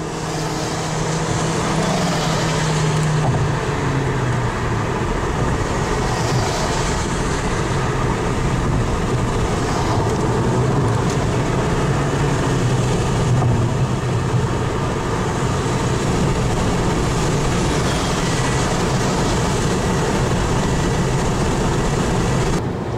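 Steady rush of wind and road noise inside a moving car at highway speed, over the low drone of its engine and tyres. The sound cuts out briefly near the end.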